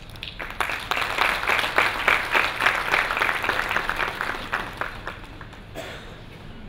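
Audience applauding a speaker's introduction. The clapping starts about half a second in, thins out from about four seconds, and ends with a few stray claps near the end.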